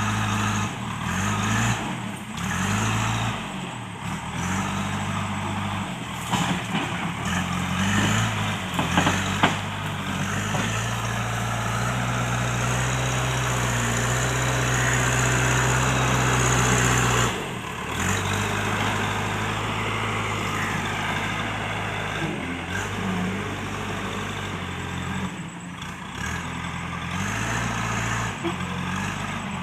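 Diesel engine of a JCB backhoe loader working, its pitch rising and falling as it revs under load and drops back. A few sharp knocks about a quarter of the way through.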